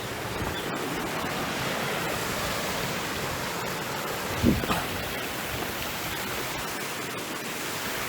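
Steady rush of a jungle stream's flowing water, with one short low thump about halfway through.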